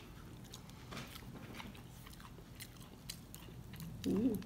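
Faint, close chewing and crunching of crispy breaded coconut shrimp: scattered small crunches. A short voice sound comes about four seconds in.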